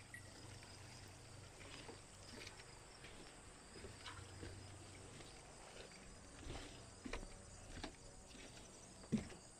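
Faint outdoor ambience with insects chirping steadily. A few soft knocks and rustles come in the second half.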